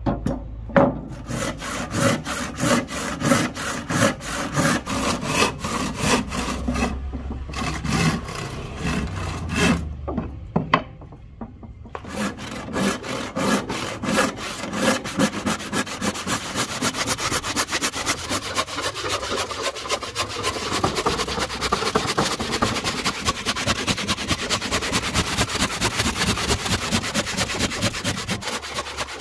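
Hand saw cutting through a rosewood blank in steady back-and-forth strokes. There are two short pauses, and after the second the strokes come faster.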